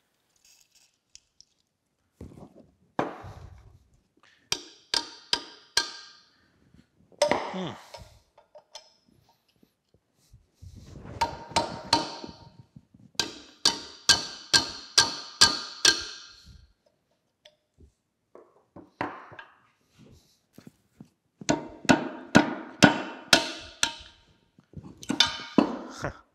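Hammer blows on a wrench fitted to a rusted nut, a run of three or four sharp metallic raps a second with a short ring after each, repeated in several bursts with pauses between: knocking a seized fastener loose on an old cast-iron cane mill.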